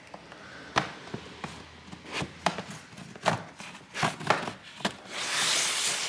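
Plastic clips of an Acer Aspire 5 laptop's bottom cover snapping loose one after another as a pry tool is worked along the seam: about a dozen sharp clicks, then a scraping rub near the end.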